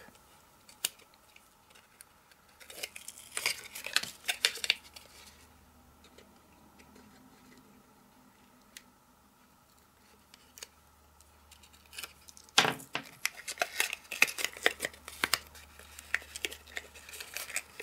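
A pointed tool scratching and clicking as it picks at the protective film of double-sided tape on cardstock, the film peeling away, and card rustling as the pieces are handled. The sounds come in two spells: a short one a few seconds in and a longer, busier one from about two-thirds through, which opens with a sharp tap.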